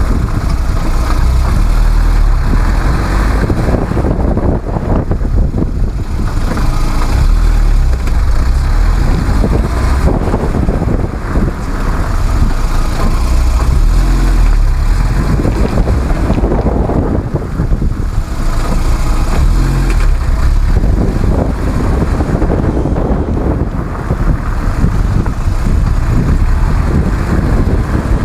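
Lada Kalina on the move, its engine and road noise rising and falling as it speeds up and slows down under braking. No squeal from the reworked brake pads, which have been slotted and chamfered and are running quiet.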